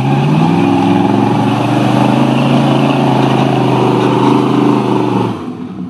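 1976 Ford F-250 Highboy pickup's engine revving hard as the truck climbs through deep mud ruts. The pitch climbs over the first second, holds high and steady, then the engine eases off about five seconds in.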